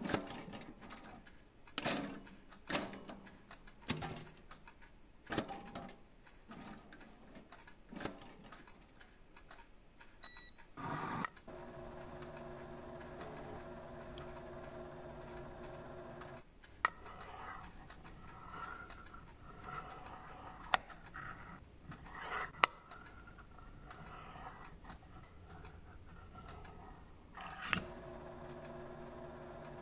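Scattered sharp mechanical clanks and clicks, then, about a third of the way in, the steady motor hum and faint whine of an automatic dog-feeding contraption as its arm swings a can of dog food into place. A few sharp clicks sound over the hum.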